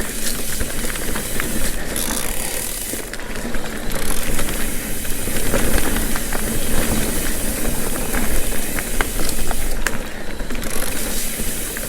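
Mountain bike riding along a dirt singletrack trail: a steady rush of wind over the microphone and tyres rolling on dirt, with many small clicks and rattles from the bike.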